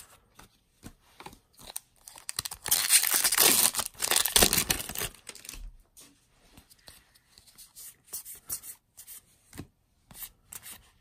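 Magic: The Gathering cards being handled and flipped through close to the microphone: a loud rough rustle lasting about two and a half seconds a couple of seconds in, then softer flicks and slides of cards.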